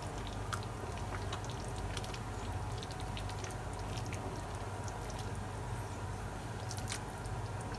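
Pot of noodle soup simmering while a metal ladle stirs through it, liquid sloshing with a few faint clinks of the ladle against the stainless steel pot, one a little louder about seven seconds in. A steady low hum runs underneath.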